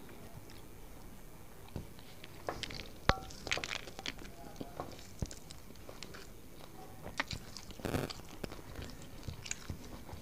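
Close eating sounds: fingers mixing and scooping rice on a banana leaf, with chewing of a mouthful. Scattered soft clicks and crackles, one sharper click a little after three seconds and a brief crackle near eight seconds.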